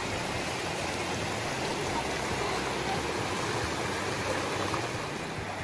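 Shallow mountain creek rushing steadily over rocks and stones.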